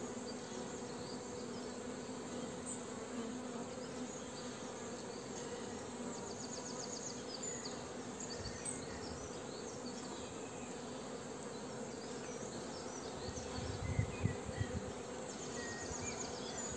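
Honeybees buzzing steadily on the open frames of a small mating nuc as a comb is lifted out, a steady hum. A few soft bumps near the end.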